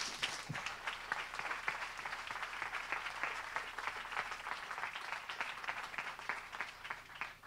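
Audience applauding, dense clapping from a full room that dies away near the end.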